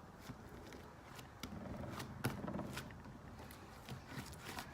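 Sticky homemade slime being pulled apart by hand, giving faint, irregular sticky clicks and crackles; the slime has gone overly sticky and broken down.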